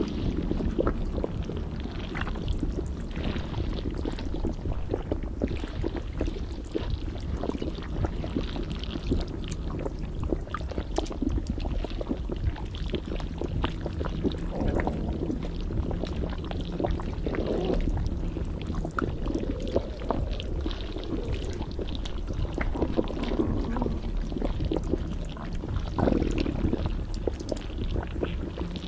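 Stomach gurgling and sloshing heard as if from inside the belly: a steady low churning full of small wet clicks, with louder rising gurgles now and then.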